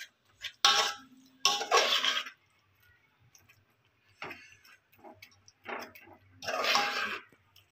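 A ladle scraping and stirring a thick chana dal and jaggery filling around a metal pot, in separate strokes with short pauses between. The filling is cooking down on a low flame to thicken.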